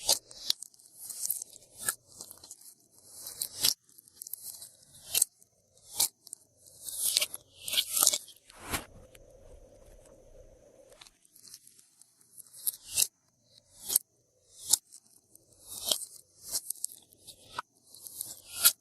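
Glossy slime being squished, folded and stretched by hand, giving irregular sticky clicks, pops and crackles, with a quieter spell about halfway through.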